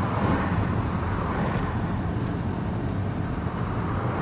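Steady drone of a van's engine running, heard from inside the cab.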